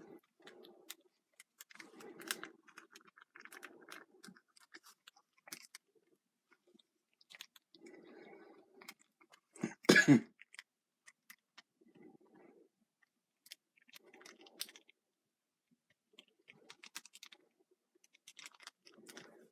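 Small plastic parts of an action figure being handled and fitted together: soft clicks, scrapes and rustles, with one much louder short knock-like burst about halfway through.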